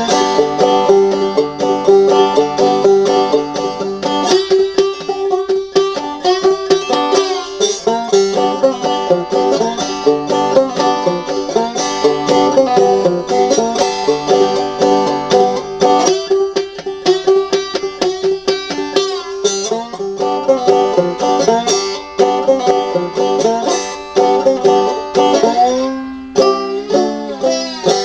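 Five-string banjo played clawhammer style with a slide in a blues: a steady run of struck notes over a repeating high drone note, with a few sliding notes near the end as it thins out.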